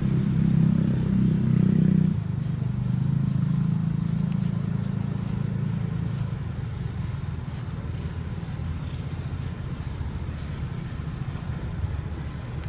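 Steady low hum of an engine running, a little louder for the first two seconds and then settling, with faint rustling in the grass.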